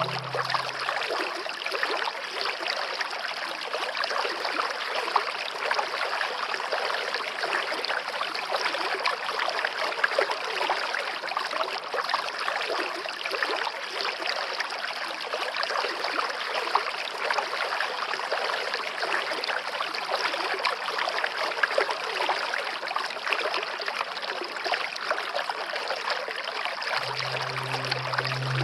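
Stream water flowing steadily, a continuous rushing trickle with no change in pace.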